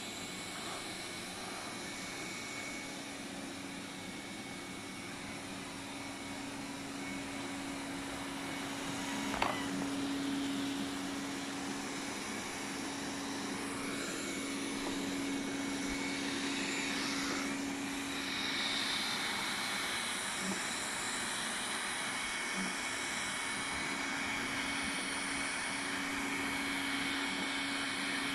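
Xiaomi Mijia 1C robot vacuum running steadily, its suction fan and brushes giving a constant hum with a thin high whine, and a single sharp click about nine seconds in.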